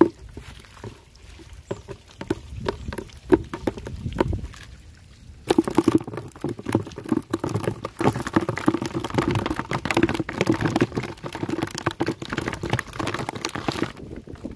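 Water splashing and pattering as small fish thrash in a shallow, crowded net and are scooped out by hand. Scattered splashes at first, then dense, continuous splashing from about five seconds in that stops abruptly just before the end.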